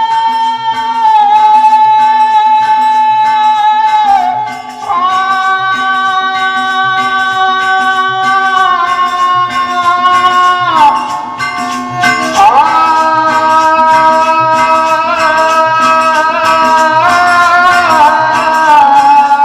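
Indian Birha folk music: long held sung notes with slides between them, carried over harmonium, a steady hand-drum rhythm and jingling percussion.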